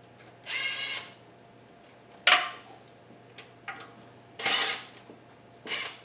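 Hand tools on the KA24DE's lower oil pan bolts: short bursts of ratchet clicking, four or five times. About two seconds in there is one sharp metal clank.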